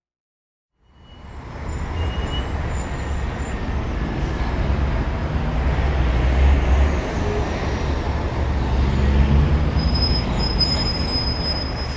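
Steady low rumble of car engines and traffic, fading in about a second in and holding.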